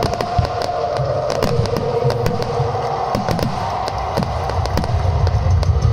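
Aerial firework shells bursting and crackling, a rapid irregular run of bangs and cracks with a deep rumble underneath.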